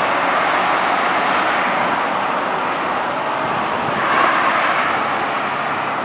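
Ferrari sports cars driving past below on a highway: steady engine and tyre noise, swelling about four seconds in as one passes closest.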